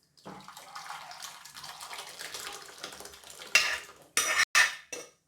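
Thin tomato rasam being poured from the cooking pan into a bowl, a steady splashing pour for about three seconds, followed by four sharp clinks of utensil against vessel.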